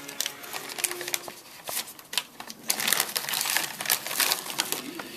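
Packaging crinkling and rustling with many short, irregular clicks as a boxed autographed baseball is unwrapped by hand.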